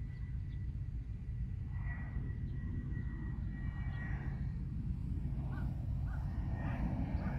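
Thin, steady high whine of a tiny toy-grade RC plane's electric motor and propeller in flight, swelling as it passes close about four seconds in, over a steady low rumble of wind on the microphone.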